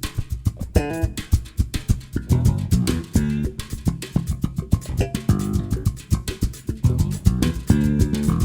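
Bass guitar and percussion playing a northeastern Brazilian groove. The bass plays melodic lines over quick, steady percussion strokes.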